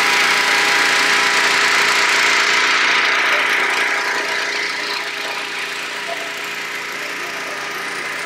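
Hot air balloon's propane burner firing with a loud, even rush that eases off from about halfway through, over the steady hum of a running engine.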